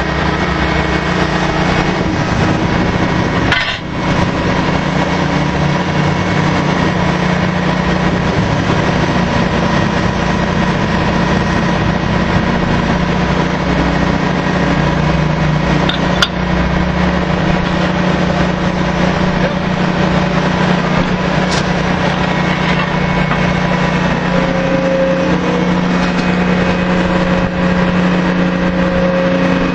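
Drilling-rig machinery running steadily: a loud, continuous engine drone with a strong hum. There is a brief dip about four seconds in and a single sharp click around sixteen seconds in.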